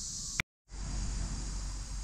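Steady high-pitched chorus of insects over a low rumble. About half a second in, a click and a brief drop to dead silence where the recording is cut, after which the insect chorus goes on fainter over a steadier low rumble.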